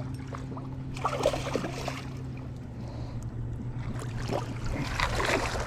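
Water splashing and sloshing at the boat's side as a hooked channel catfish is landed, in irregular spurts about a second in and again near the end, over a steady low hum.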